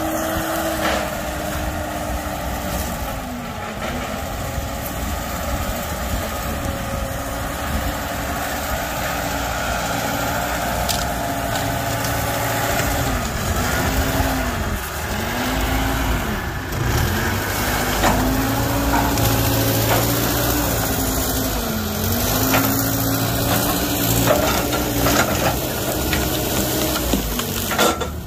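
Genie GTH-5519 telehandler's diesel engine running, its note dipping and recovering several times as it works under load. In the second half, knocks and cracking of wood as its forks push into a pile of tree trunks.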